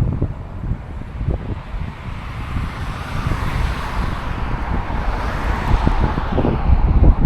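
Wind buffeting the microphone in gusts, while a passing vehicle's tyre noise swells up and fades away over a few seconds.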